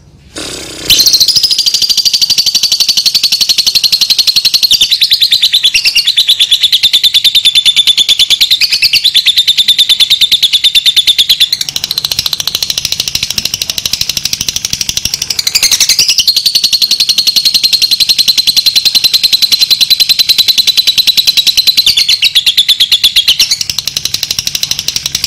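Fischer's lovebird giving its long ngekek song: a rapid, high-pitched chattering trill held almost without a break for more than twenty seconds, starting about a second in.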